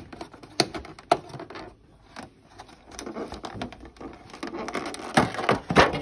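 Thin clear plastic takeout container being handled: scattered sharp clicks and crinkling of the plastic, with two louder cracks near the end.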